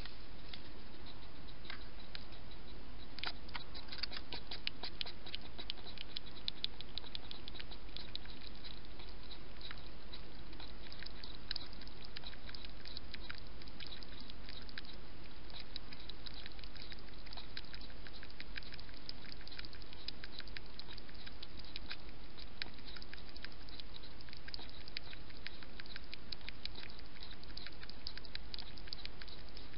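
European hedgehog feeding with its head down at the bowls: a fast, uneven run of small mouth clicks and smacks that grows stronger a few seconds in and keeps going.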